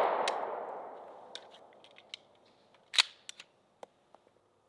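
A single 9mm gunshot from a Glock 19 right at the start, its echo fading over about two seconds. It is followed by a few sharp metallic clicks of the pistol being handled, the loudest about three seconds in. The round is recently thawed ammunition that fires but lacks the power to cycle the slide.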